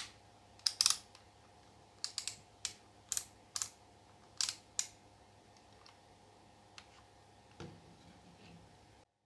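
Small plastic parts of a Kemei KM 9020 hair trimmer clicking and tapping as it is handled and fitted back together: a dozen or so sharp clicks, some in quick pairs, over the first five seconds, then a few softer knocks.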